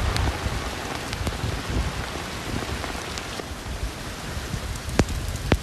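Heavy rain falling steadily, with a few sharp taps of drops striking close by, two of them near the end.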